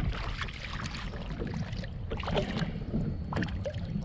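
Wind rumbling on the microphone, with repeated short water splashes and light knocks around a kayak.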